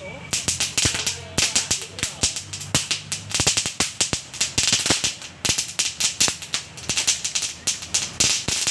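A long string of firecrackers going off, a rapid, irregular run of sharp bangs, several a second, with no pause.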